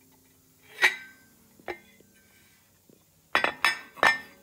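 Metal parts of a UTV's secondary clutch clinking and knocking together as it is taken apart: a sharp clink about a second in, a lighter one shortly after, then a quick run of clanks near the end, each ringing briefly.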